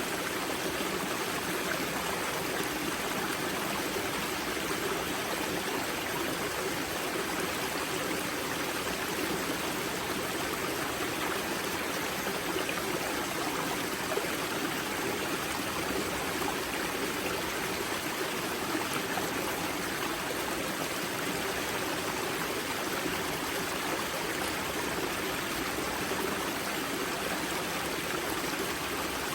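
Water of a karst spring at the head of the Grza river flowing and splashing over rocks in a steady rush, with no let-up.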